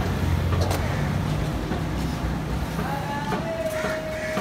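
Street traffic rumbling past the stall, with a long steady tone setting in a little after three seconds.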